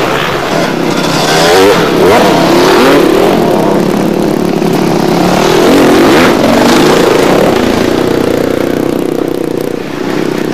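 Motocross dirt-bike engines revving loudly, their pitch rising and falling with the throttle.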